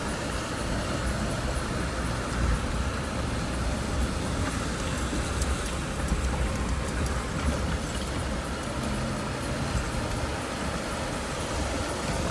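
Off-road 4x4's engine running steadily at low speed as the vehicle crawls over rough ground, with a few faint ticks and knocks about halfway through.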